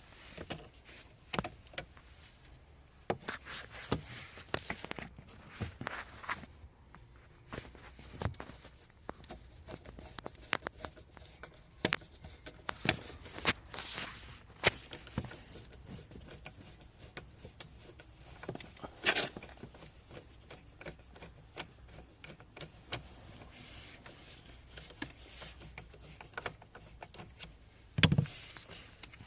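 Irregular handling noises: scattered clicks, taps and knocks, with a short rustling patch about two-thirds of the way in and a louder low thump near the end.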